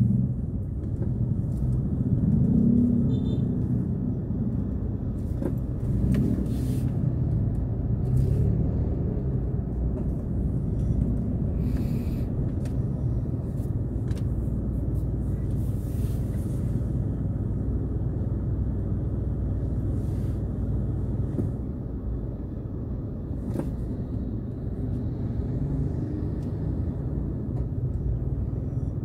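Car driving slowly in traffic: a steady low rumble of engine and road noise, with a few faint, irregular clicks.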